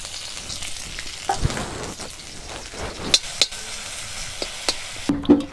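Vegetables frying in oil in a steel kadhai, a steady sizzle, with a steel ladle stirring and clinking against the pan a few times.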